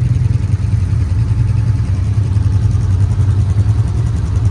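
ATV engine running steadily with a deep, even rumble.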